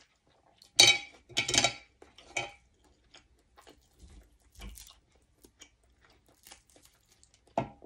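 Close-miked eating and food-handling sounds: soft chewing with a few short, sharp scrapes and clatters as grilled beef liver on a bamboo skewer and a pinch of sticky rice are picked up by hand. The two loudest come about a second in, with smaller ones later and another near the end.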